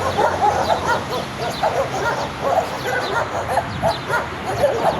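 Several dogs barking aggressively at once, a rapid, unbroken run of overlapping sharp barks and yips.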